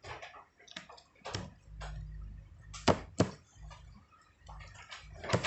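A few sharp clicks and knocks, the loudest two close together about three seconds in and another near the end, over an intermittent low hum.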